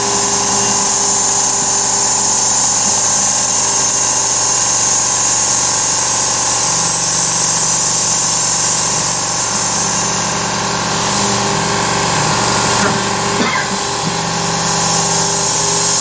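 Carvera Air desktop CNC mill cutting steadily: the spindle and cutter make a sustained mechanical whine, with a constant hiss of the air-assist blast. Some of its tones change in step about a third and two thirds of the way through as the tool moves along its path.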